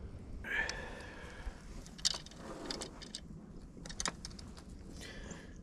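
Light clicking and jingling of fishing tackle being handled, with a few sharp clicks about two and four seconds in.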